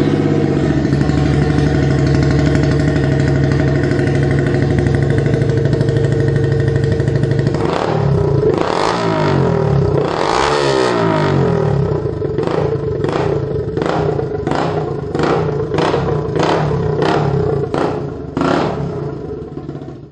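Yamaha WR 125 R's single-cylinder four-stroke engine, breathing through a newly fitted MIVV stainless-steel header pipe, idling steadily. About eight seconds in it is revved up and down, then given a quick series of throttle blips, about two a second.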